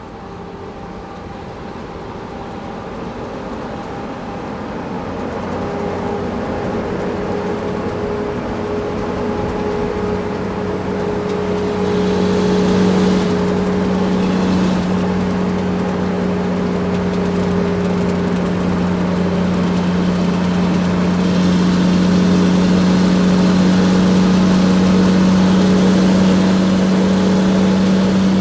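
Big truck's engine running at a steady pitch as it drives, growing gradually louder over roughly the first twelve seconds and then holding steady.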